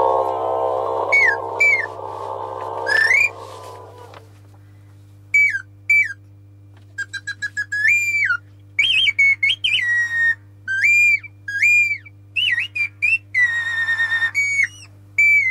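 A string of short, high whistled notes, many sliding down or up at the end, with a quick run of staccato pips about seven seconds in. A sustained droning musical chord fades out over the first four seconds.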